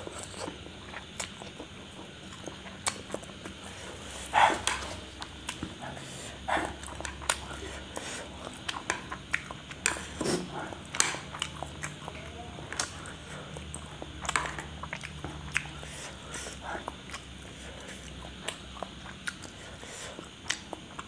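A person eating spicy instant noodles with chopsticks, picked up close by a lapel microphone: wet chewing, lip smacks and slurps of noodle strands, heard as a run of short sharp clicks and smacks with a louder slurp about four seconds in.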